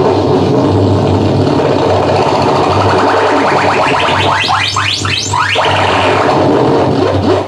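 Harsh live electronic noise from a REON drift box S synthesizer through a BOSS Metal Zone distortion pedal and a Sherman Filter Bank 2: a dense, distorted mass over a steady low hum. About three seconds in, a fast run of rising chirps climbs higher and steeper, then breaks off just before six seconds in.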